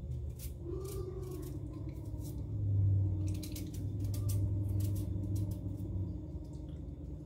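Vegetable peeler scraping the skin off a raw sweet potato in quick, irregular strokes, over a steady low hum.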